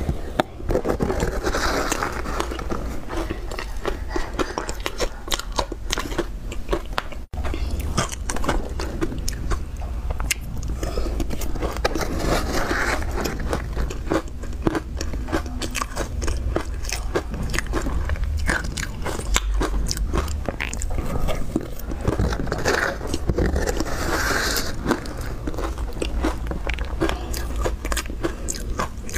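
Soft pink ice coated in milk powder being bitten and chewed close up: a dense, continuous run of small crunches and crackles. The crunching breaks off for an instant about seven seconds in.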